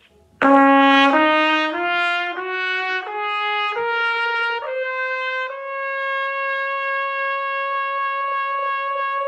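Trumpet playing an ascending E-flat major scale, eight notes of about two-thirds of a second each, then holding the top E flat in the upper register.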